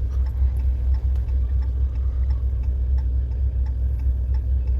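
A car's hazard-light flasher ticking steadily, a few clicks a second, inside the cabin over a low, steady rumble.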